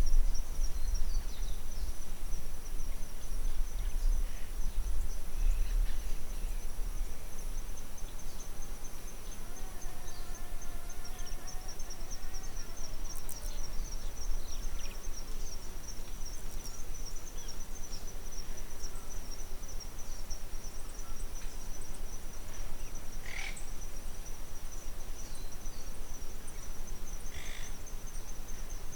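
Insects trilling in a steady, high, fast-pulsing chorus. A low rumble of wind on the microphone fades out in the first few seconds, and a few short calls come through near the middle and the end.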